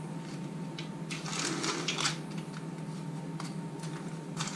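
Baking paper crinkling and rustling under the fingers as the edge of a puff-pastry galette is pinched and folded shut, loudest for about a second midway, with a few small clicks, over a steady low hum.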